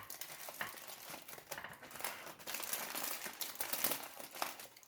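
Aluminium foil being crumpled and pressed closed around a baking tray, crinkling with many small sharp crackles, as it is crimped tight so no steam escapes.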